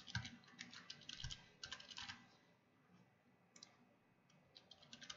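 Faint typing on a computer keyboard: a quick run of keystrokes over the first two seconds, a short pause, then a few more keystrokes near the end.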